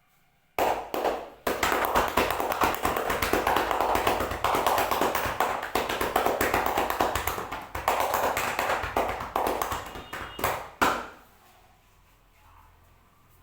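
Rapid percussive massage strokes, hands tapping or striking the body many times a second in a dense, continuous patter. They start about half a second in and stop after about ten seconds.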